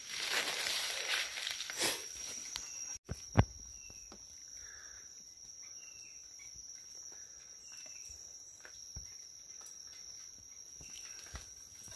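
Footsteps and leaves rustling as someone pushes through forest undergrowth for the first two seconds, then a single sharp click a little after three seconds in. A steady high insect drone runs throughout, with small quiet clicks and rustles from a man working at the leaf litter.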